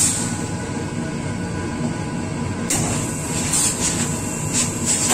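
Steam iron pressing a wool jacket's collar seam, with short hisses of steam over a steady low machine rumble from the pressing setup.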